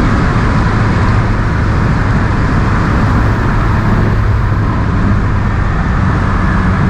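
A car running at a steady speed: a constant engine drone with road and wind noise.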